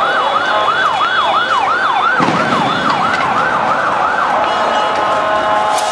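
Emergency vehicle siren in a fast yelp, sweeping up and down about three times a second, then switching to a steady tone near the end. It sounds over the constant noise of a crowd, with a short burst of noise about two seconds in.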